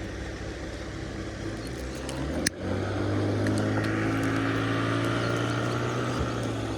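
An engine running steadily. There is a sharp click about two and a half seconds in, and after it the engine runs louder, with a fuller hum.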